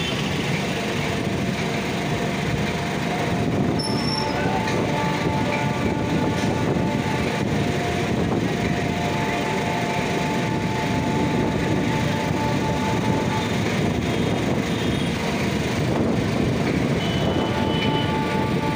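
MEMU electric train running, heard from the open doorway of a moving coach: a steady rumble of wheels on the track with a faint whine that comes and goes. There is a brief high chirp about four seconds in.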